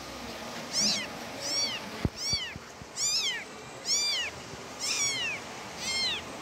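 Kittens mewing: about six short, high-pitched mews, each rising then falling, coming roughly once a second after a quiet first second. There is a single sharp knock about two seconds in.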